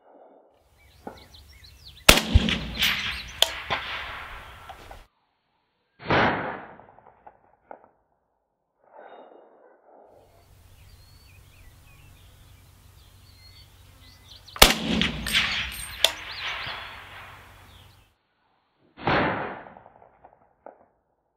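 Two shots from a Zastava M77 semi-automatic rifle in .308 Winchester, about twelve seconds apart. Each sharp report is followed by a rolling echo and then, about four seconds later, a shorter, fainter crack.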